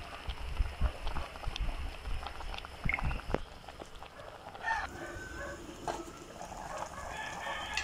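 Chickens in the background, clucking and calling in short pitched bursts, the clearest about five seconds in and again near the end. A few light knocks of a metal pot and its lid come in between.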